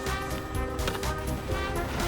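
Background music: held notes over a steady low beat with light percussion.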